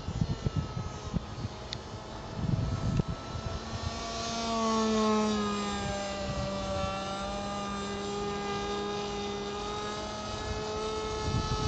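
Electric RC model airplane's motor and propeller whining overhead: a steady pitched drone that swells about four seconds in, dips slightly in pitch, then holds. Wind buffets the microphone in the first few seconds and again near the end.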